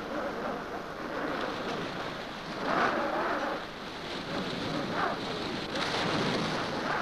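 Stormy wind and sea noise: a steady rush that swells in gusts about three, five and six seconds in.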